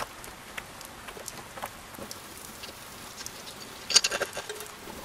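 Sparse faint clicks, then about four seconds in a short cluster of clicking and rattling: hard clay pebbles (expanded clay pellets) being stirred by hand on a plate.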